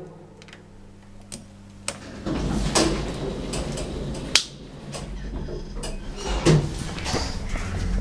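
Lift mechanism in a residential block: a steady low hum with a few clicks, then a louder rumble of sliding doors and machinery from about two seconds in, with a sharp knock about four and a half seconds in and another near six and a half.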